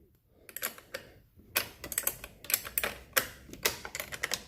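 Irregular sharp clicks and clacks of small hard objects being handled and set down, about a dozen in a few seconds.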